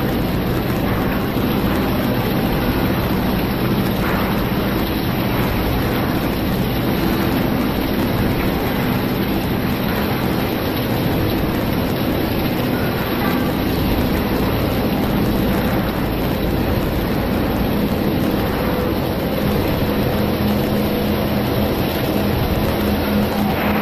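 Industrial machinery running steadily: a dense, even noise with a low hum.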